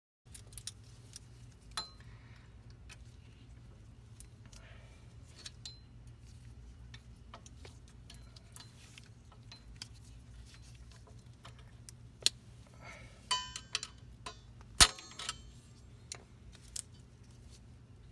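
Scattered metallic clicks and clinks of pliers and steel brake hardware as the parking-brake shoe springs are worked into place by hand. A short jangling rattle about 13 seconds in and a sharp click soon after are the loudest.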